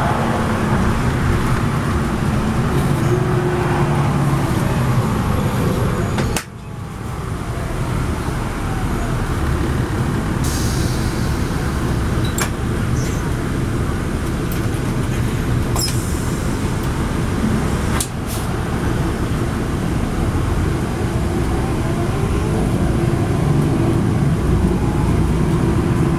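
Inside a NABI 40-SFW transit bus cruising at highway speed: the steady rumble of its rear-mounted Cummins ISL9 diesel and tyre and road noise. The noise dips suddenly about six seconds in and builds back over a second or two, and a few sharp clicks come through later on.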